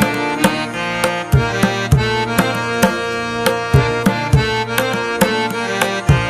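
Background instrumental music: held melody notes over a steady rhythm of drum strokes and low thumps.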